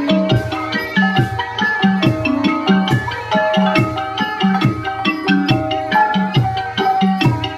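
Thai piphat folk ensemble playing: quick runs of struck pitched notes from mallet percussion over a steady pattern of hand-drum strokes, with short metallic ticks on the beat.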